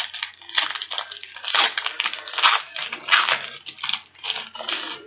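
Wrapper of a 2004 Bowman baseball card pack crinkling and tearing as it is opened, in quick irregular crackles.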